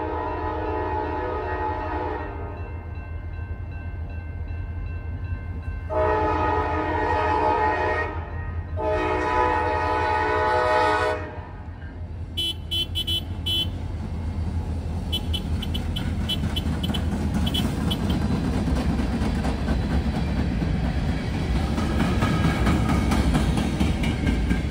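CSX local freight locomotive's multi-chime air horn sounding three long blasts: one fading out about two seconds in, then two more after a pause. Then the train rolls by, with a deep diesel rumble and clicking, rattling wheels on rail growing louder near the end.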